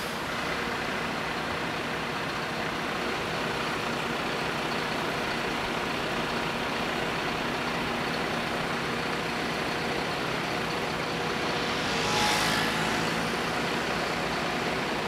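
Fire engines' diesel engines running steadily, with a short, louder hiss about twelve seconds in.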